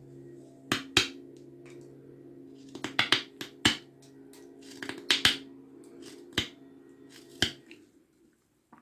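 Folding pocket-knife blade cutting into a thin wooden branch in a series of short, sharp snaps, about a dozen of them in small clusters, as the top of the branch is carved off. A steady low hum lies underneath.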